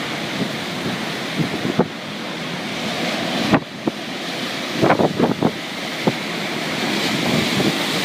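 Storm wind and heavy surf crashing onto a coast in a hurricane, with gusts buffeting the microphone. A few short, sharp sounds stand out about five seconds in.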